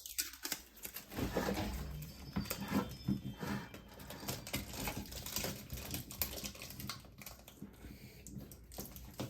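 Sticky tape being pulled off its roll and wrapped around the joint between a vacuum hose and a plastic adapter: irregular crackling and clicking with handling of the parts.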